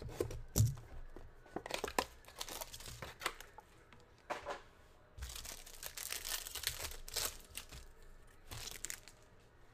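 Plastic wrap and a foil pack from a 2023 Panini Prizm football card box being cut, torn open and crinkled by hand: a run of short rips and crinkles, with the longest stretch of tearing in the middle.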